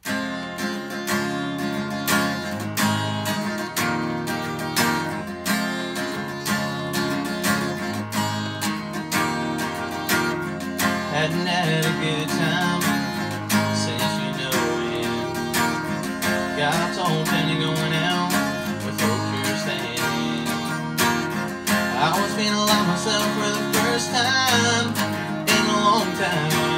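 Acoustic guitar strummed in a steady rhythm, starting abruptly. A young man's singing voice comes in over it about ten seconds in.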